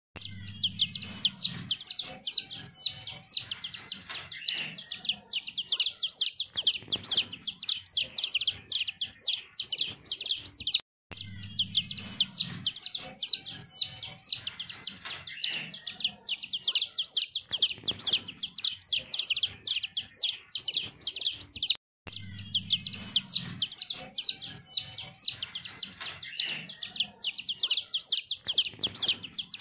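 Baby chicks peeping in a dense, continuous chorus of rapid, high, falling cheeps. The same stretch of about eleven seconds repeats twice, with a brief break at each repeat.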